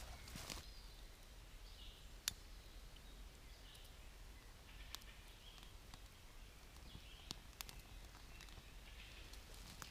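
Near silence: a faint steady hiss with a few isolated sharp clicks, and faint high chirps now and then.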